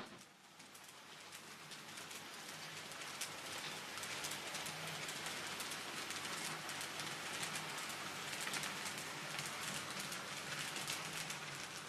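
N-scale model steam locomotive of class 65 hauling passenger coaches: a fine, rapid clatter of small metal wheels over the model track, growing louder over the first few seconds as the train comes closer. The engine is freshly serviced and running smoothly.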